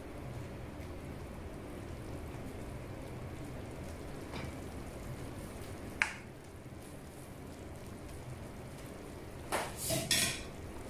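Pechay and its broth simmering in a frying pan, a steady bubbling hiss. A sharp click about six seconds in and brief clatter near the end.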